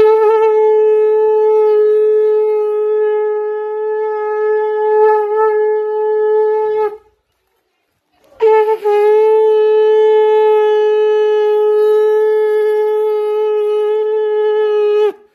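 Conch shell (shankh) blown in two long, steady notes of about seven seconds each, with a short break between.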